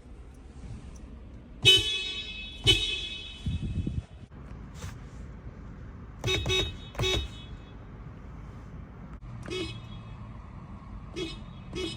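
Toyota RAV4 Prime's car horn honked repeatedly in an echoing space. Two loud honks come about two seconds in, each followed by a ringing echo, then a quick burst of short beeps mid-way and a few lighter short taps near the end.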